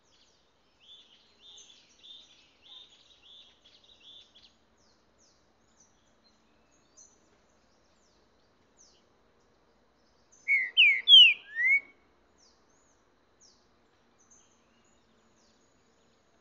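Caged green-winged saltator (trinca-ferro) singing one short loud phrase of four or five sharp, sweeping whistled notes about ten seconds in. Earlier there is a few seconds of faint distant bird twittering, with scattered faint high chirps throughout.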